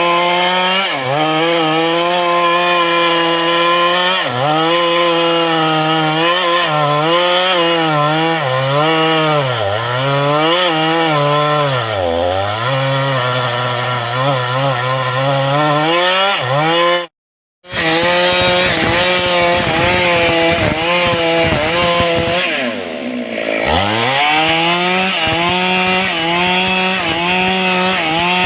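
Stihl two-stroke chainsaw running at full throttle while cutting into a tree trunk. Its pitch sags again and again as the chain bogs in the wood and then recovers. The sound drops out completely for about half a second around the middle, and the pitch dips deeply once more near the end before picking back up.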